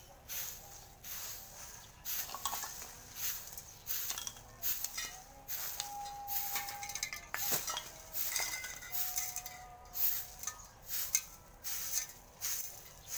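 A broom sweeping across the ground in a steady run of brisk, scratchy strokes, roughly two a second.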